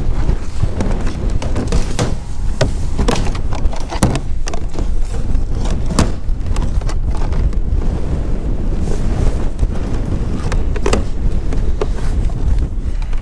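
Wind buffeting the microphone, with scattered clicks and knocks of plastic rain-gutter pipe and a downpipe elbow being handled on top of a plastic IBC water tank.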